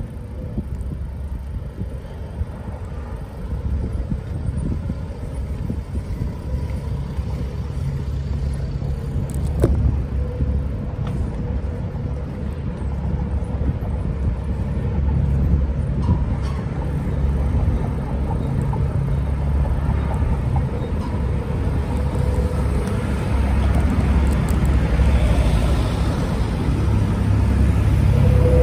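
Wind buffeting the microphone while cycling through city streets: a low, steady noise that grows louder toward the end, with a few faint clicks.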